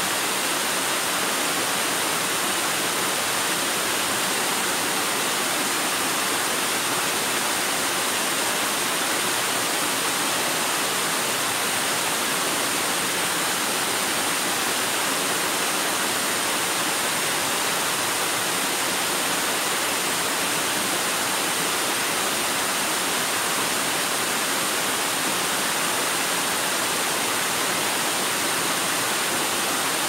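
Whitewater river rapids rushing, a steady, even hiss of water that does not change.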